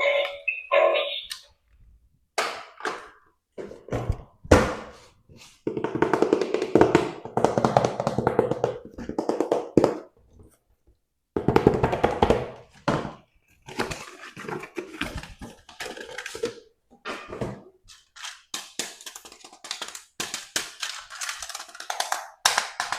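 Plastic toy packaging and an action figure being handled: a string of clicks, taps and knocks, with two longer stretches of rapid crinkling about six and eleven seconds in.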